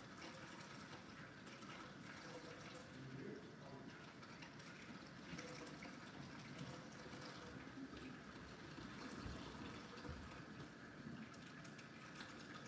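Faint, steady running water from a kitchen tap, filling a pot.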